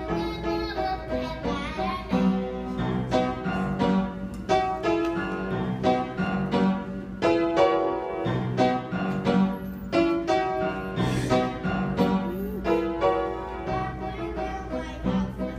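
Piano playing an instrumental tune, a run of notes over chords, as the introduction to a children's musical.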